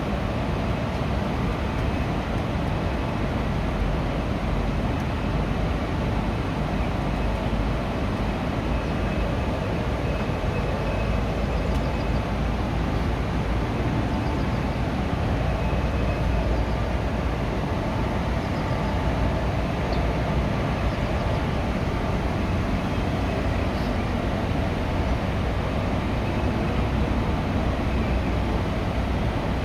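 Indian Railways ICF passenger coach running on the track, heard from inside the coach: a steady rumble of wheels on rail.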